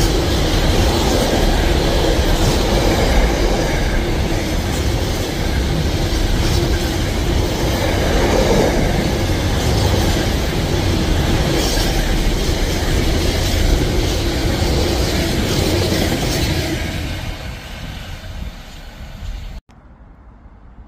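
Container freight train's wagons rolling past close by over a steel girder bridge, with a steady rumble and clatter of wheels on rail. The sound fades a few seconds before the end, then cuts off suddenly to quiet background.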